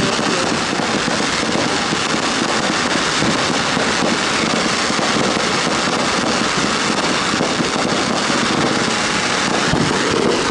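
Fireworks going off in a dense, continuous stream of crackling and popping, with a low thud near the end.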